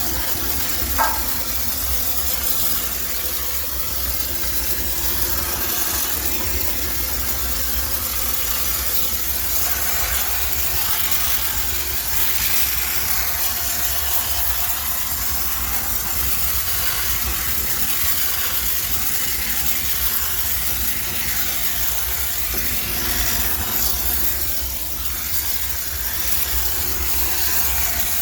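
High-pressure steam sterilizer running: a steady hiss of steam over a low machine rumble, with one short sharp noise about a second in.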